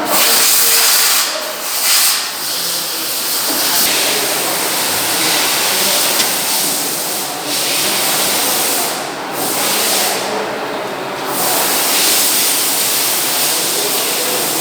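A steady, loud spraying hiss, briefly let off and on again a few times, as parts are sprayed clean.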